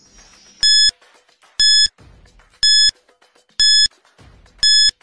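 Quiz countdown timer sound effect: five short, identical electronic beeps, one each second, ticking off the time left to answer.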